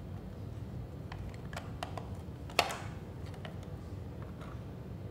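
Small plastic clicks and taps as the parts of a coffee machine's milk-frothing unit and its locking lever are handled, with one sharper click about halfway through.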